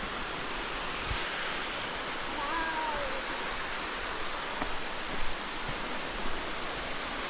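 Waterfall water pouring and splashing, a steady rushing noise.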